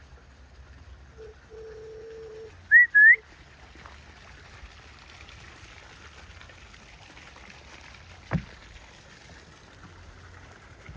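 A person whistling two short, loud rising notes about three seconds in, a whistle to call the dogs. Just before, a brief faint steady hum, and later a single knock.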